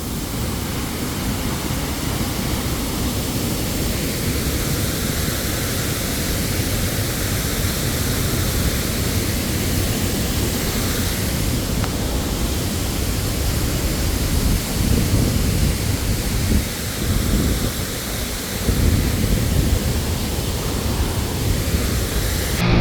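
Waterfall rushing in a steady, even roar, with low rumbles that swell and fade a few times in the second half.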